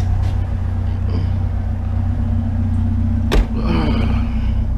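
Vehicle engine idling with a steady low hum, heard from inside the vehicle, with a single short knock about three and a half seconds in.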